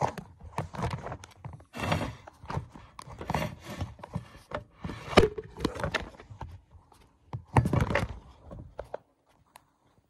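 Phone handling noise: the microphone rubbing and knocking as the phone is carried and moved about, with irregular thuds and rustles that stop about nine seconds in.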